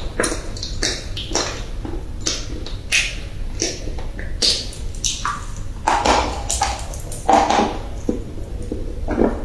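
Pieces of Chinese edible clay being bitten and crunched in the mouth, with sharp crisp crunches coming at irregular intervals, about one or two a second.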